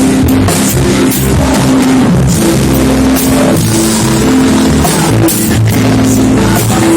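A praise band playing rock-style worship music: drum kit, electric guitar and bass holding a steady beat.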